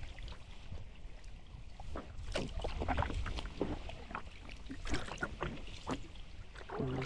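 Paddling a 10-foot Pelican kayak: irregular splashes and drips of water off the paddle blades, over a low rumble.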